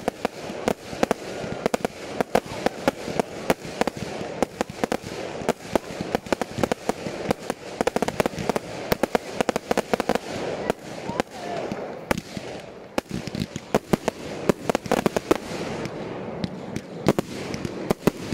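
Aerial fireworks from firework batteries firing in rapid succession: a dense, continuous stream of sharp bangs and crackles, several per second, with no pause.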